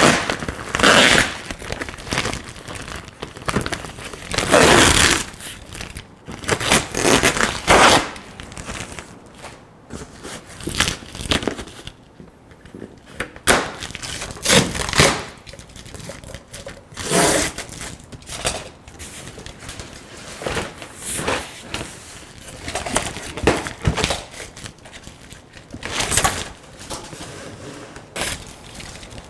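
Plastic wrap crinkling and tearing as a packing-list sleeve is pulled off a cardboard box. Then a utility knife slits the packing tape and strapping, with tape ripping and cardboard scraping and thumping in irregular bursts.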